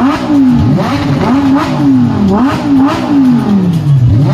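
Lamborghini supercar engine being revved in place, loud, in quick repeated throttle blips: its note climbs sharply and falls back over and over.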